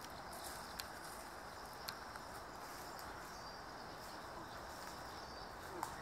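Outdoor ambience: a steady high insect drone, with a few faint short bird calls and two soft clicks in the first two seconds.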